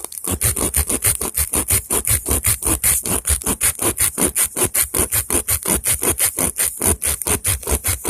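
Tire plug kit's reamer tool being pushed rapidly back and forth in a tire puncture, rasping in rapid, even strokes of about seven a second as it cleans and enlarges the hole for the plug.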